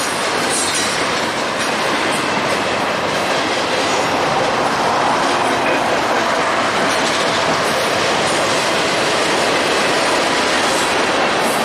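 Freight train rolling across a steel girder overpass: a steady clatter of wheels on rail, with faint repeated clicks from the wheels passing over the rail joints.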